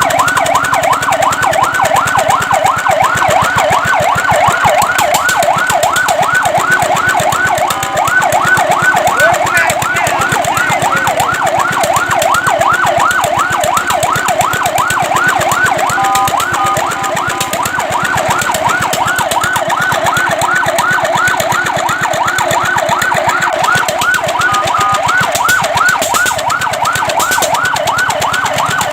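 Fire truck siren in a fast yelp, its pitch sweeping up and down about three times a second. A few times it breaks briefly into steady held tones, about a quarter of the way in and again near the middle, before the yelp resumes.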